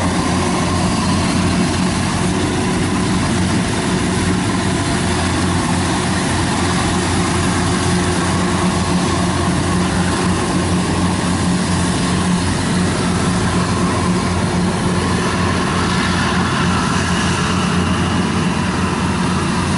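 Kubota rice combine harvester running steadily as it works a muddy paddy, its diesel engine holding a constant low note.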